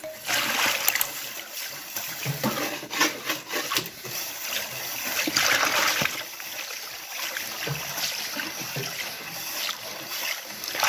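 Brown boiled rice water sloshing and splashing unevenly in a plastic basin as it is stirred with a metal utensil.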